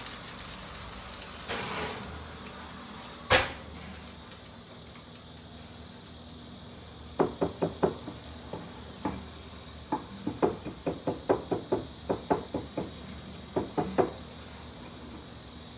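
Kitchen knife chopping fresh parsley on a wooden chopping board: a fast, uneven run of sharp taps for about seven seconds in the second half. A single loud knock comes about three seconds in.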